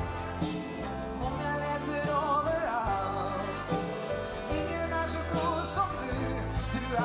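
Male singer performing live with a big band: his voice over saxophones, brass, bass and drums, with cymbal strokes through the music.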